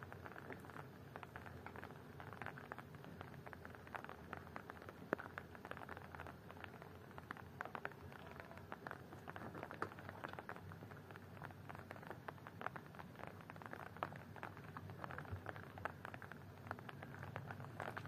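Faint background ambience: a low hiss with many small, irregular ticks and patters throughout.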